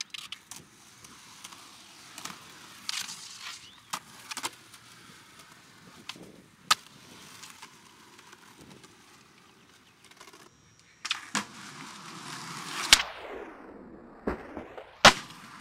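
Skateboard wheels rolling on concrete, broken by sharp clacks of the board popping and landing. Near the end comes a loud pop, then a sweep that falls steeply in pitch, then a loud landing clack.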